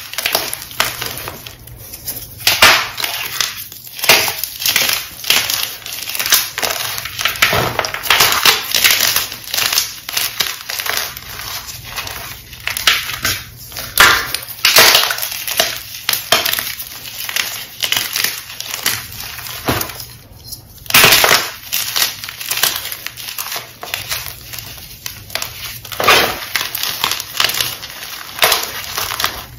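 Hands crushing and crumbling blocks of gym chalk: a continuous run of dry crunches and crackles, with sharper, louder crunches every few seconds.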